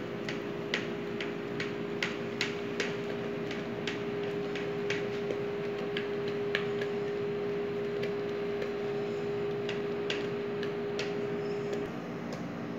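Spatula knocking and scraping against a stainless steel mixing bowl while a chocolate mixture is worked, giving sharp clicks two or three times a second. A steady machine hum runs underneath and cuts off near the end.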